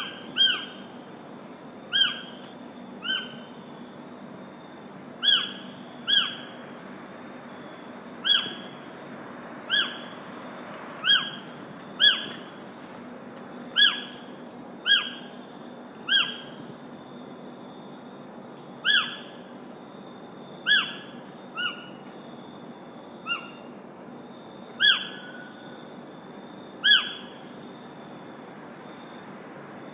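A bird repeating a short, sharp call about every second or two, each note dipping slightly in pitch, over a steady background hiss.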